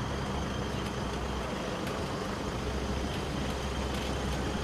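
Steady road traffic noise with a constant low engine hum from passing vehicles.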